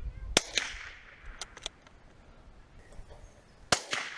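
CZ 455 Lux II .22 calibre bolt-action rifle fired twice, about three and a half seconds apart, each sharp crack trailing off in echo, with a few light clicks in between.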